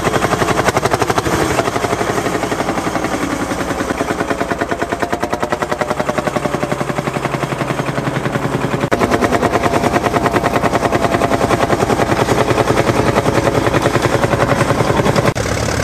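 Field Marshall tractor's single-cylinder two-stroke diesel running under load while ploughing, with a rapid, even exhaust beat. It grows a little louder about halfway through, and near the end a different tractor engine takes over.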